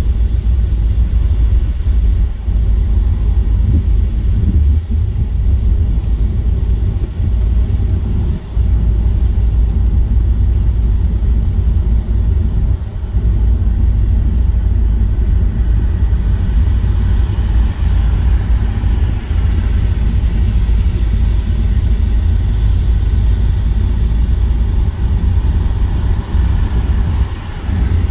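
Car driving at motorway speed in heavy rain: a steady low rumble of tyres and engine, with a hiss of wet-road spray that grows from about halfway through.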